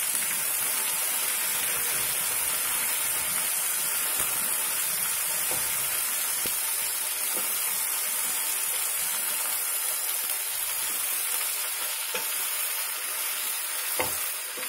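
Brinjal pieces frying in oil in a pan on low heat while being stirred with a wooden spatula: a steady sizzling hiss, with a few knocks of the spatula against the pan.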